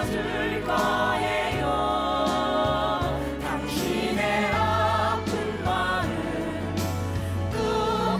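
Ensemble of voices singing a musical-theatre song together over instrumental backing.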